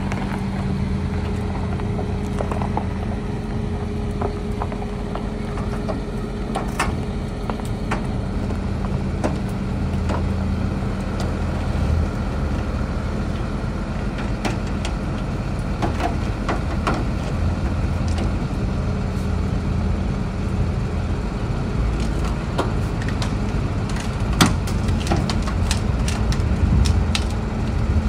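Pininfarina Battista electric hypercar creeping up a metal loading ramp into a transporter truck. A steady low hum runs throughout, with scattered clicks and knocks that come more often near the end.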